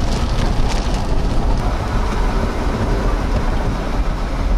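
Steady rumble of a vehicle driving on a wet road in a storm, with wind and rain noise and a few raindrop ticks in the first second or two.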